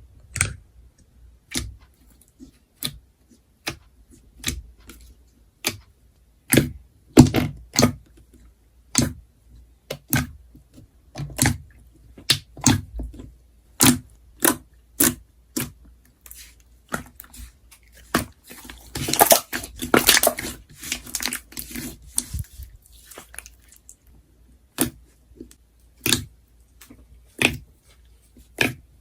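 Slime being pressed and squished by hand, giving sharp popping clicks about once or twice a second. About two-thirds of the way in there is a few seconds of denser crackling.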